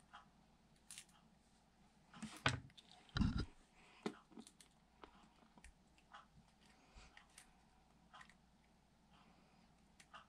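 Faint, scattered small clicks and taps from handling the parts of a metal construction toy set, with two louder knocks close together about two and a half and three seconds in.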